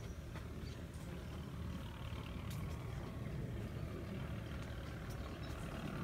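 Quiet outdoor ambience: a faint, steady low rumble with a few light ticks.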